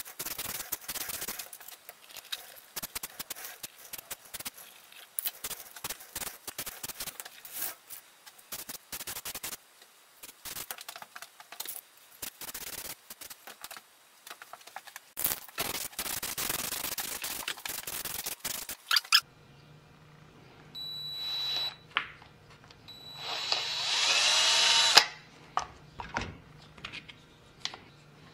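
Craftsman cordless drill running in two short bursts in the second half, the second longer and louder, its whine rising and falling in pitch. Before it comes a long stretch of dense scratchy crackling and hissing.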